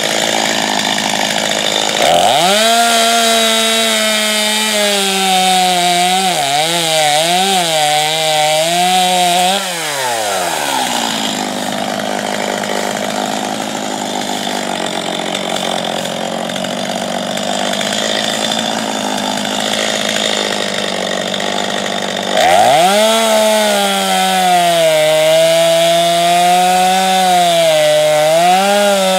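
Gasoline chainsaw revving up into a cut in a tree. Its pitch wavers and dips under load, then it drops back to idle for a long stretch before revving up into the cut again near the end.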